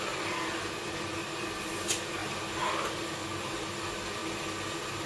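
Steady whooshing hum of the glass-blowing hot shop's equipment (furnace, glory hole and their blowers) running, with one sharp click about two seconds in.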